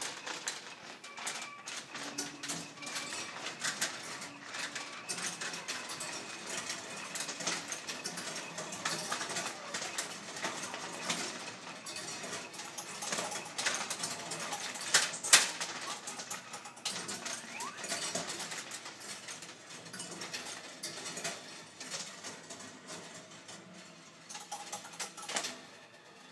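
A gumball rolling down the wire tracks of a Big Top Gumball vending machine, a continuous run of small metallic clicks and rattles with one sharper knock about halfway through, fading over the last few seconds.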